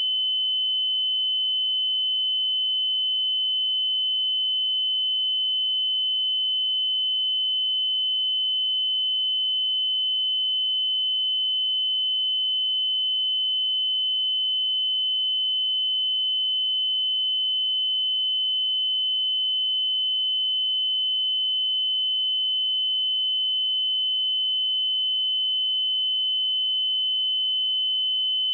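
A single steady 3038 Hz sine-wave test tone, one pure high-pitched note held without change.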